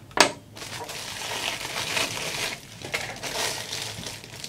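Clear plastic bag crinkling as a camera lens is unwrapped from it, with a single sharp click just after the start.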